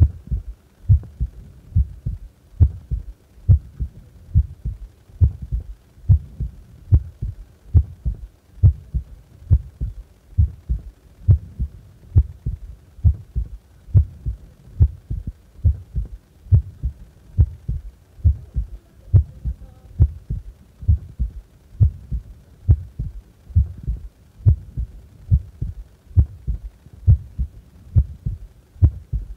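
Human heart beating at rest: a steady lub-dub rhythm of low thumps, each beat a louder thump followed by a softer one, about once a second.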